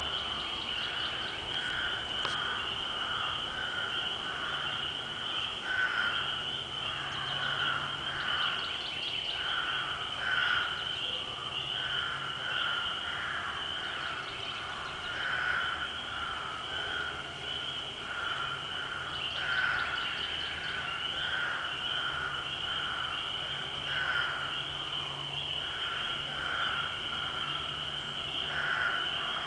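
A chorus of frogs calling at night-pond pitch, a dense run of short repeated calls over a steady high trill, which the uploader takes for big frogs. A low hum comes and goes beneath it.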